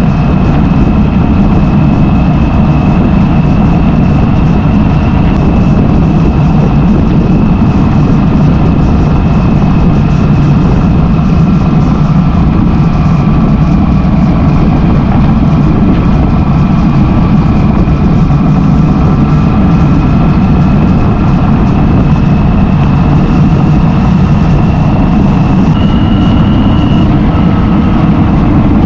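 Yamaha XJ900F motorcycle's air-cooled inline-four engine running at a steady cruise, a loud low rumble with a steady high whine over it. The whine steps up in pitch briefly about three seconds before the end.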